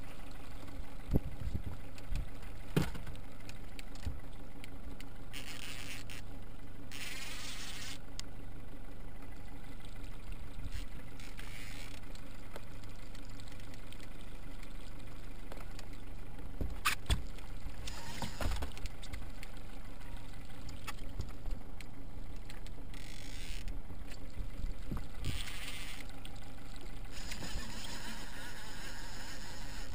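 Fishing reel drag buzzing in several short runs as a hooked salmon pulls line off against the bent rod.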